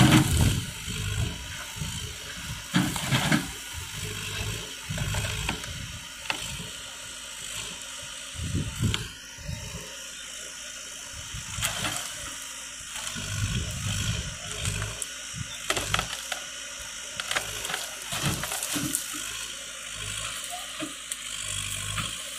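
Backhoe loader's diesel engine running steadily as its rear digging arm pushes and pulls at a dead tree, with irregular knocks and cracks of wood breaking throughout.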